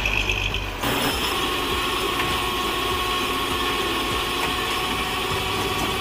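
Heavy tow truck engine running steadily, with a thin steady whine above it; the sound changes abruptly just under a second in.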